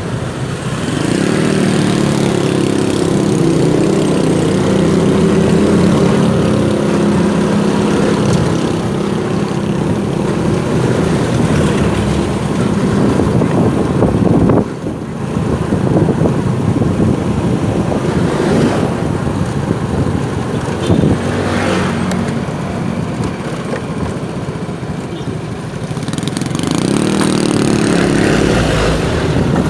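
Motorcycle engine running on the move, its pitch climbing as it accelerates about a second in and again near the end, with a brief drop about halfway through.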